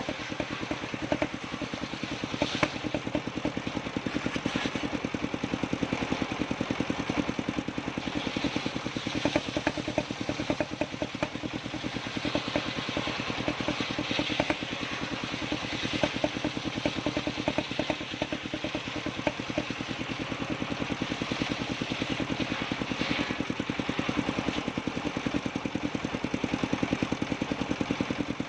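Engine-driven circular sawmill running steadily, the engine's fast even pulse under a rushing hiss that swells and fades.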